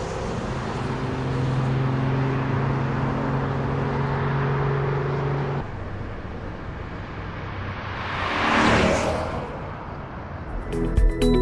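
C7 Corvette's V8 with its exhaust valves closed, a muted drone holding a steady note as the car pulls away. Then the car drives past, swelling to a peak and falling in pitch as it goes by. Music comes in near the end.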